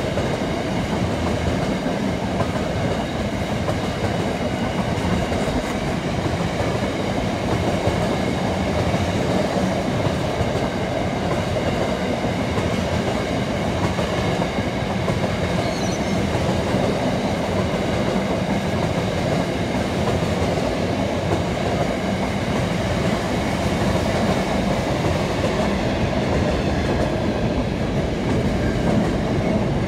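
Freight train rolling steadily past at close range, its wheels and wagons making a continuous rumble with some clatter over the rail joints.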